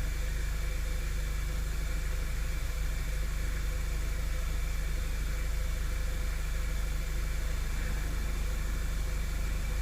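A 2011 Audi A3's turbocharged 2.0-litre four-cylinder engine idling steadily during warm-up.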